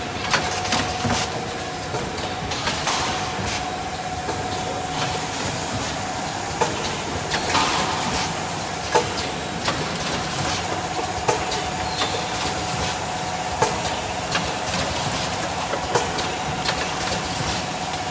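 Automatic Nespresso capsule filling and box packing line running: a steady mechanical hum with a constant mid-pitched tone, broken by sharp clacks of the machine's moving parts every second or two.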